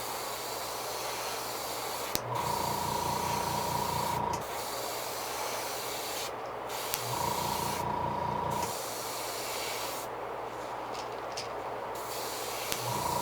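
Airbrush spraying paint: a steady hiss of air, with three spells of about two seconds each where it gets a little louder, with a low hum and a steady whistle-like tone.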